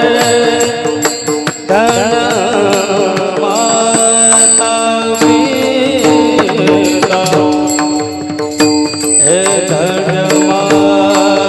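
Devotional kirtan singing: a voice sings an ornamented melody with many glides over steady sustained accompanying tones, with hand-drum strokes keeping the beat.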